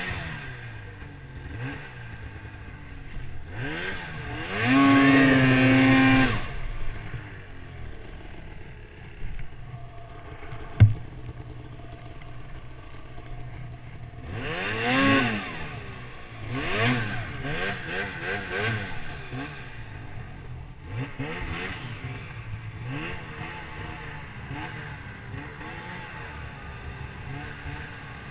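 2018 Arctic Cat Mountain Cat 8000's two-stroke twin engine being ridden on the throttle, revving up and falling back again and again. The longest, loudest burst comes about five seconds in and another about midway, with smaller revs after. A single sharp knock sounds shortly before the midway rev.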